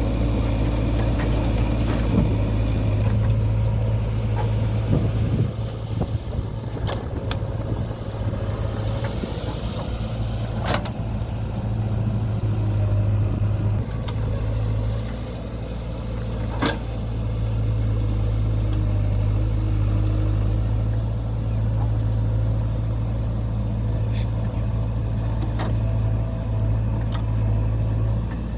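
JCB 3DX backhoe loader's diesel engine running steadily under work, its note easing and building. A few sharp metallic knocks come now and then, the loudest about eleven and seventeen seconds in.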